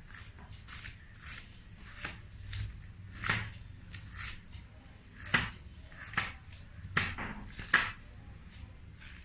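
Paper and plastic sleeves of a photo album rustling as its pages and photos are handled, about a dozen short swishes one after another.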